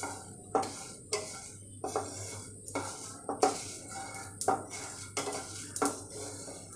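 A wooden spatula sweeping whole spices, mostly coriander and cumin seeds with dry red chillies, around a dry nonstick pan, the seeds rattling and scraping on the metal in repeated strokes a little under two a second: whole spices being dry-roasted.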